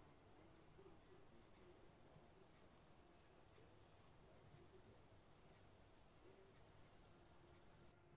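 Faint cricket chirping: short high chirps about three times a second over a steady high-pitched whine, all cutting off suddenly near the end.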